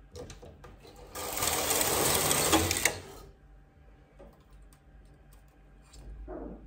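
Knitting machine carriage pushed across the needle bed, knitting a row: about two seconds of dense mechanical clatter, followed by a few light clicks.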